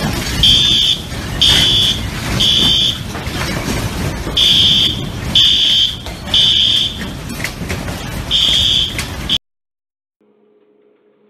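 Smoke alarm sounding the temporal-three pattern: high-pitched beeps in groups of three, about one a second, with a pause between groups, over a loud rumbling, rattling noise. It all cuts off abruptly about nine seconds in, leaving a faint low hum.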